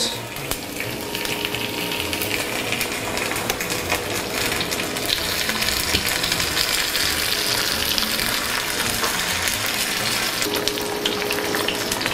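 Melted butter sizzling in a frying pan around slices of tomato: a steady frying hiss with many fine crackles.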